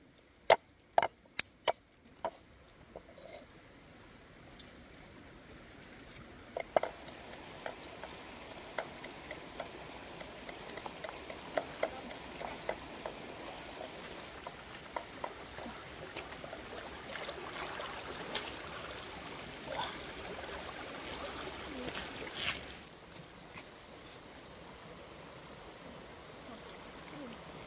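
A cleaver chopping garlic on a wooden chopping block, a quick run of about half a dozen sharp knocks at the start. Then a steady rush of stream water mixed with scattered small crackles, which swells in the middle and drops back near the end.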